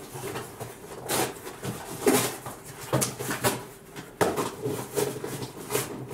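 Cardboard packaging being pulled, torn and handled: an irregular run of short scraping, rustling and crunching noises.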